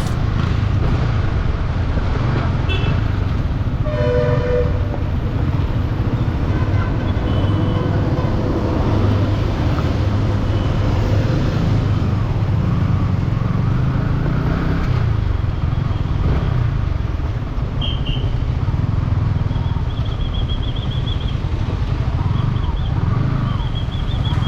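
Motorcycle running at road speed with wind rushing over the microphone: a steady rumble, with a short pitched tone about four seconds in.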